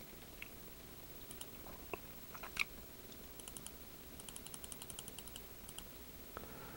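Faint clicking at a computer: a few scattered clicks, then quick even runs of small clicks, about ten a second, from about three and a half seconds in.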